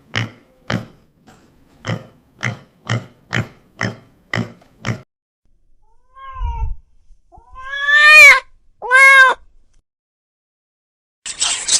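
Farm animal sounds: short grunts about two a second for the first five seconds, then after a pause two loud high calls that rise and fall in pitch. A sudden hissy noise starts near the end.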